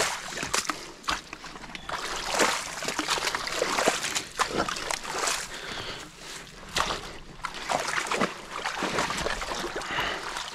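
Water splashing and sloshing irregularly as loose mud and debris are pulled out of a beaver dam by someone wading in the creek.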